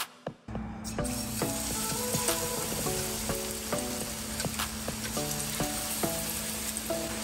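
Battered ono (wahoo) chunks frying in hot oil: a steady sizzle that starts about half a second in.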